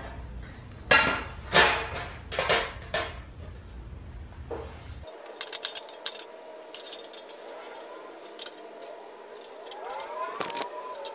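Panels of a heavy 304 stainless-steel catalytic converter shield clanking against each other as they are handled and laid out: a run of about five loud metallic clanks in the first few seconds, then lighter scattered clinks.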